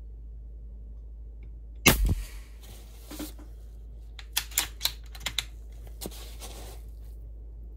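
AEA HP Max .35 caliber PCP air rifle firing one shot about two seconds in, a sharp report with a short ring in the room. A knock follows, then a quick run of sharp clicks as the bolt is cycled to load the next pellet.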